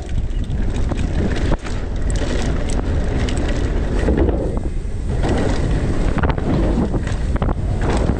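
Mountain bike rolling fast over paved and cobbled street and wooden ramps, with tyre rumble and many sharp rattles and knocks from the bike, under heavy wind buffeting on the camera microphone.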